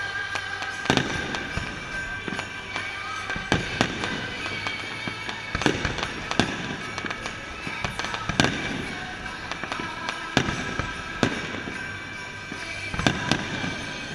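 Fireworks display: shells bursting with sharp bangs every second or two, some echoing, over steady music.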